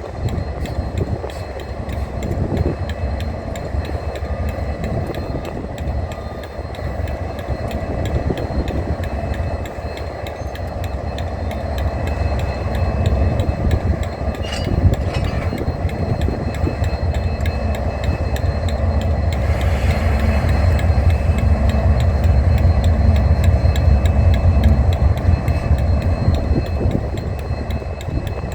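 Diesel-electric locomotive engine running with a deep, steady rumble, growing louder through the second half.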